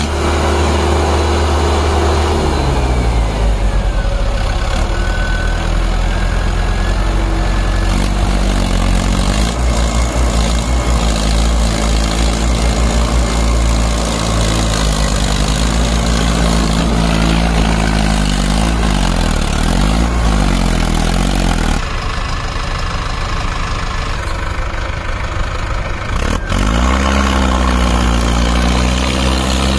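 Heavy diesel engine running loud and steady, its pitch rising and falling again and again as it is revved up and eased off, with a duller stretch of a few seconds about three-quarters of the way through.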